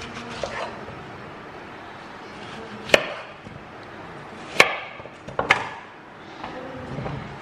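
Chef's knife cutting through a peeled apple onto a wooden cutting board: several knocks of the blade striking the board, three of them sharp and loud.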